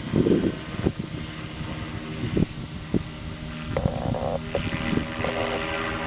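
Align T-Rex 600E Pro electric RC helicopter in flight: the rotor and motor make a steady drone with several overtones. Wind buffets the microphone in low rumbling gusts near the start.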